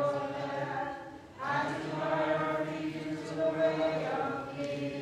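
Byzantine liturgical chant sung by voices, sustained phrases with a short break for breath about a second and a half in.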